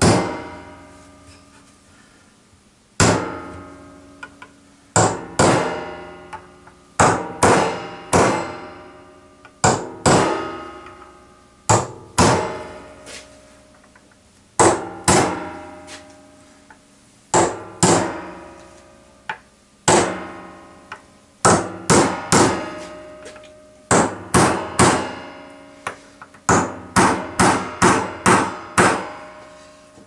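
Claw hammer driving nails into a timber frame: sharp single blows, mostly a second or two apart, each ringing out and dying away, with a quicker run of blows near the end.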